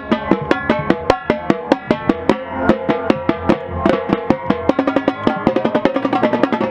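Marching band playing: wind and brass instruments sounding sustained chords over a drumline whose snare and bass drums strike a steady, accented beat that quickens toward the end.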